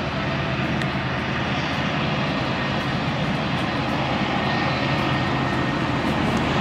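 Steady rumbling drone of a running vehicle, with a constant low hum under a broad hiss.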